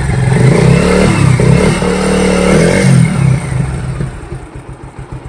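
Bajaj Pulsar motorcycle's single-cylinder engine running and being revved, its pitch rising and falling, then dying away over the last couple of seconds. With the timing chain tensioner freshly adjusted, the engine runs smooth, without the chain noise.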